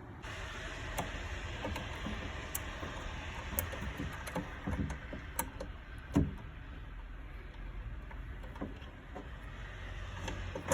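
Scattered light clicks and knocks of boiler parts being handled and worked loose, over a steady hiss, with one louder knock about six seconds in.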